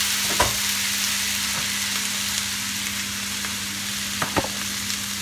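Steady sizzling hiss from a hot pot on the stove, ghee heating in the bottom under parboiled rice, with a steady low hum underneath. A few light clicks of a metal spoon against the pot, a pair of them about four seconds in, as ghee is spooned in.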